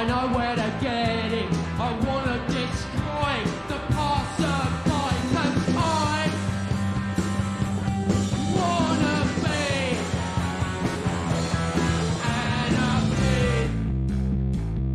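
Punk rock song played by a full band, with a singing voice and crashing cymbals over bass and guitar. Near the end the cymbals and high end drop out, leaving a heavier bass and guitar part.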